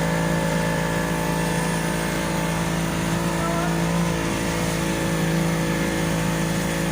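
A fibreglass boat's engine running steadily under way, an even drone that holds its pitch.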